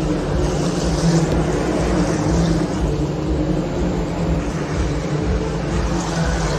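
Racing car engines running on the circuit, heard as a steady droning din with no single car standing out.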